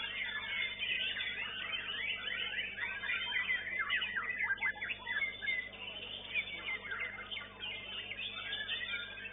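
White-rumped shamas (murai batu) singing in a dense chorus of rapid, overlapping whistles and pitch sweeps, thinning out about five seconds in.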